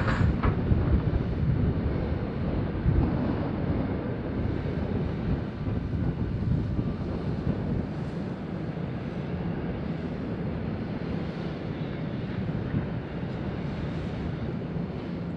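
Heavy diesel mining equipment, a Hitachi 870 excavator loading haul trucks, running steadily under load. It is a little louder over the first three seconds, with a couple of sharp knocks, then settles into an even, low running noise.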